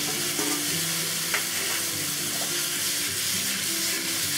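Just-parboiled broccoli florets sizzling steadily in a hot oiled wok with minced garlic, stirred with metal tongs and tossed, with a light click about a second in.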